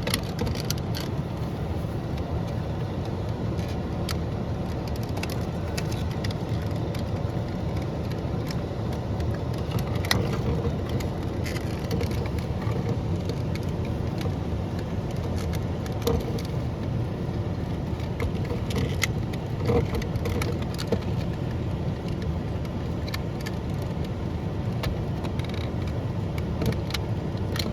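Scattered small clicks and snaps of plastic as the old power window switch is worked out of its housing on a Chevy Silverado door panel, over a steady low hum.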